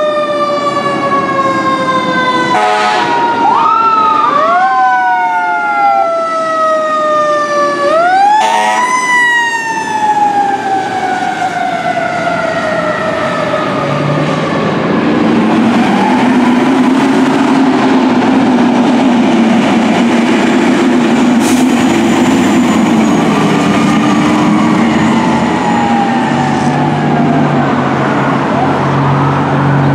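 Fire truck sirens wailing on a code 3 response, each wail rising quickly and then falling away slowly, with short air-horn blasts at about 3 and 8 seconds in. From about halfway on, the siren is fainter and rises and falls more slowly over the steady run of a diesel engine as the apparatus pull away.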